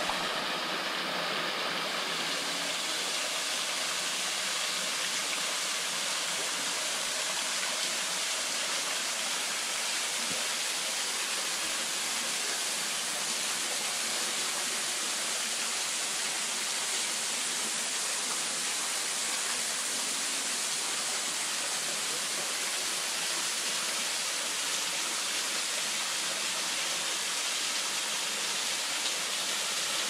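A thin, low-flow waterfall splashing steadily into a pool below, an even rush of water.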